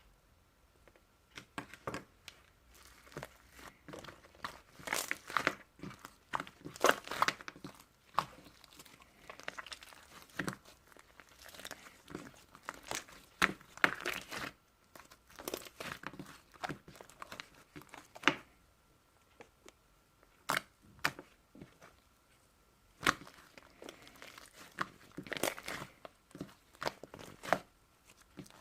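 Slime being squeezed, poked and stretched by hand, giving irregular sticky clicks and crackling pops in clusters with short pauses between them.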